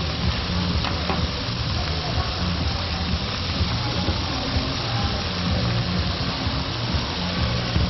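Meat sizzling on a hot cooking surface: a steady hiss with a low murmur beneath it.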